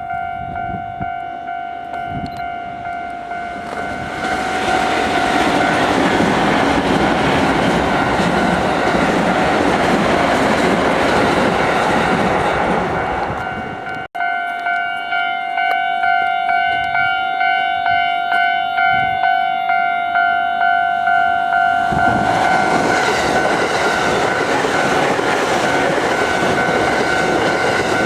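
Japanese level-crossing warning bell ringing in a steady, repeating ding while trains pass, their wheels clacking over the rail joints. The sound breaks off abruptly about halfway through and picks up again at once, and a second loud passing train comes in near the end.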